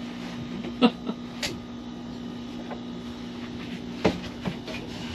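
Wooden boat cabinet being handled and shifted as it comes free, knocking a few times: sharp knocks about a second in and again near the end, over a steady low hum.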